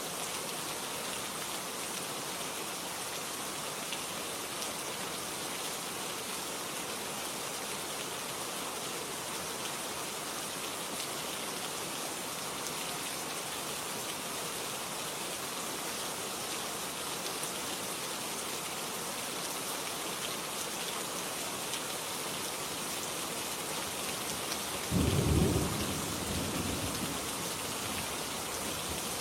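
Steady rainfall hissing, with a low clap of thunder about 25 seconds in that rumbles away over a couple of seconds.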